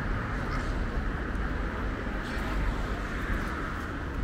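Steady outdoor background noise: a low rumble with an even hiss over it and a few faint light ticks.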